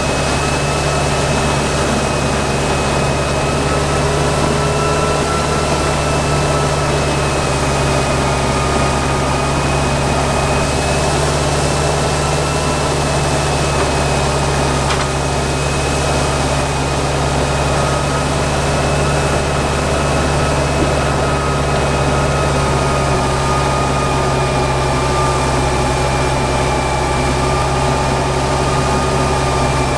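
Tractor diesel engine running steadily while it pulls a land plane over a gravel driveway, with a thin steady whine above the engine note.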